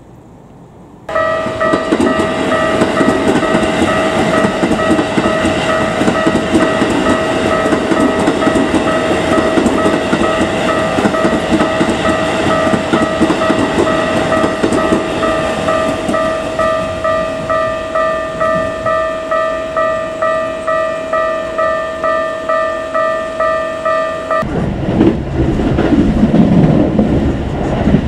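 Japanese level-crossing warning bell ringing as a fast, evenly repeating multi-tone chime while a red Keikyu train rumbles slowly over the crossing. The bell cuts off suddenly near the end, leaving train running noise.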